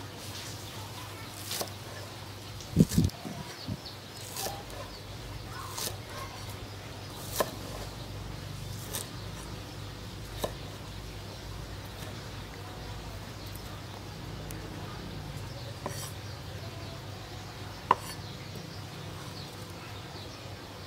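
Cleaver cutting through green onions on a wooden cutting board: irregular knocks of the blade on the wood, roughly one every second or two, with a heavy thump about three seconds in. A steady low hum runs underneath.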